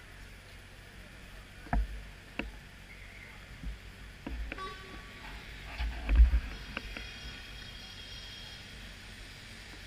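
Busy city street ambience with a steady low traffic hum and a few sharp clicks. Low muffled bumps hit the camera microphone, the loudest about six seconds in.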